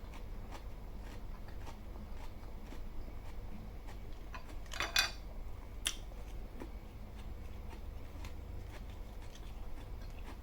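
Quiet eating sounds: soft clicks of food being handled and chewed, with a short crunchy rustle about five seconds in and a sharp click just after, over a low steady hum.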